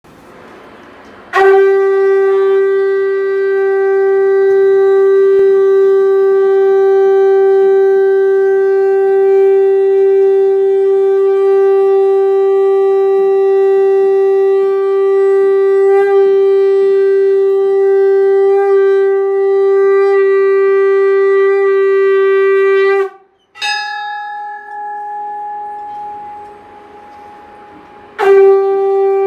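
Conch shell (shankh) blown for the aarti: one long, steady, loud blast lasting about twenty seconds, then a brief fainter, higher note, and a fresh loud blast starting near the end.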